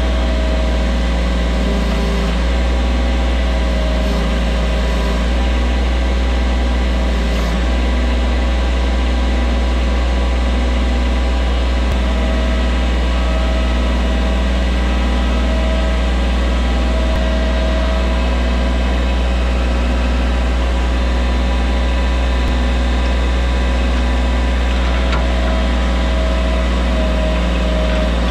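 Diesel engine of a compact track loader running steadily.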